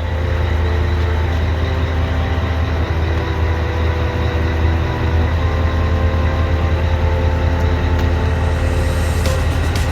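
Heavy truck's diesel engine with open-pipe exhaust running with a loud, steady low rumble. A few sharp clicks come near the end.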